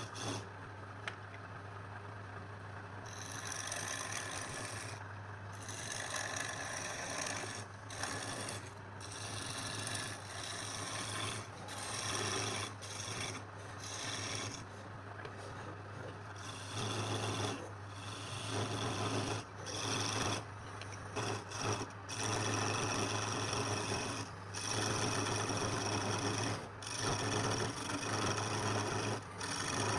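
Wood being shaped with a motor-driven abrading tool: a steady hum under a rough rasping noise that drops out briefly many times and grows louder in the second half.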